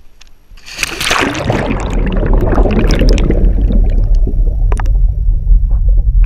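A plunge into water recorded on an action camera: a sudden rush of splashing about a second in fades into the muffled low rumble and bubbling of the camera under water, with scattered small clicks.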